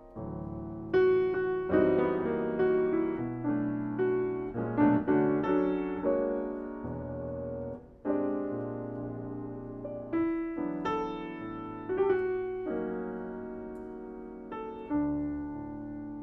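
Solo jazz piano on a Yamaha grand: slow chords struck and left to ring, with melody notes played over them. There is a brief fade between phrases about halfway through.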